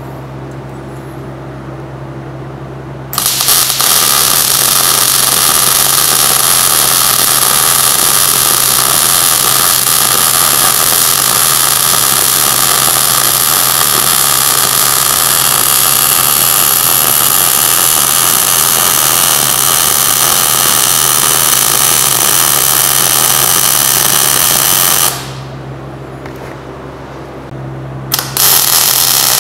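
MIG welding arc from a Miller CP-300 constant-voltage DC welder, joining a steel rod eye back onto a hydraulic cylinder rod. The arc starts about three seconds in and runs steadily for about twenty seconds, then stops. A steady low hum fills the pause, and the arc strikes again near the end.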